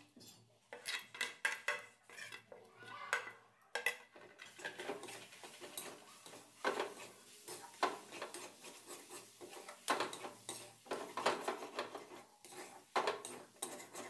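A metal spatula scraping and knocking against a metal kadhai as thick green pea filling is stirred and pressed, in irregular repeated strokes.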